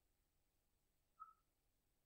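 Near silence: room tone, with one brief faint blip a little over a second in.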